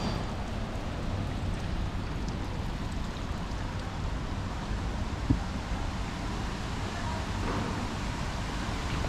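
Steady outdoor street ambience: an even wash of noise with a low rumble underneath, and one short sharp click about five seconds in.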